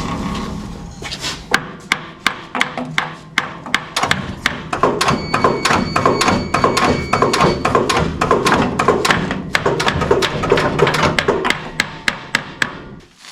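A hammer striking metal over and over in quick, uneven taps, about three a second.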